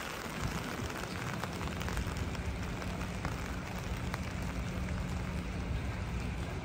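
Passenger ferry passing close, its engine a low steady hum that sets in about a second and a half in, under an even hiss with scattered faint ticks.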